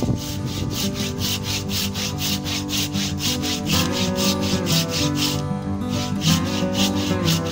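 Hand saw cutting through a log in quick, even back-and-forth strokes, with a brief pause about five and a half seconds in. Background music plays underneath.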